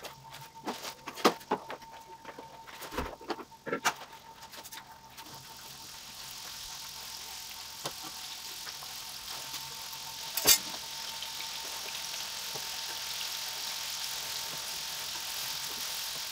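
Batter-coated chicken pieces deep-frying in hot oil in a wok: the sizzle swells about five seconds in into a steady hiss as more pieces go in. Clicks and knocks of utensils on the pan and bowl in the first few seconds, and one sharp knock about ten seconds in.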